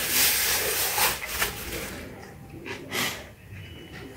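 Paper napkin rustling and crinkling as it is rubbed across the mouth, dense and loud for about the first second and a half. Two short crackles follow near the end.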